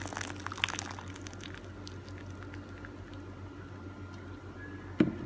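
Freshly boiled water pouring onto blocks of dried yellow noodles in a pot, splashing, with the pour stopping about a second and a half in. A single sharp knock near the end.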